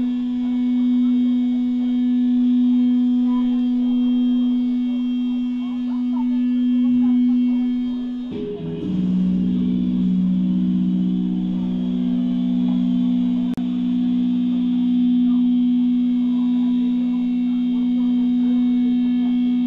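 A steady electric drone rings from the band's guitar amplifiers. About eight seconds in, a second, lower held tone joins it after a brief wobble, and the two sound together.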